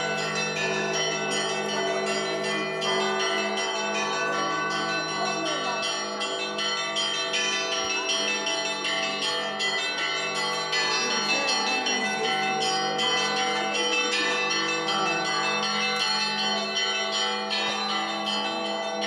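Russian Orthodox church bells rung in a continuous peal: small bells struck in quick, dense patterns over the steady ringing of larger, deeper bells.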